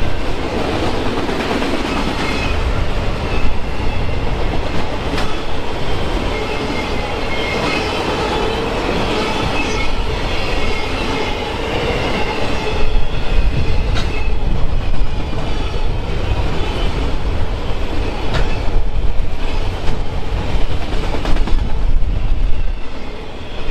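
Railroad cars of a passing train rolling by at close range: a steady, loud rumble and rattle of wheels on the rails, with a few sharp clicks.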